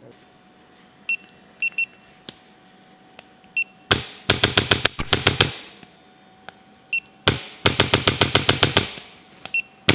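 Handheld electronic chiropractic adjusting instrument: a few short high beeps, then two runs of rapid sharp clicking thrusts, about ten a second, each lasting a little over a second, with a beep between them.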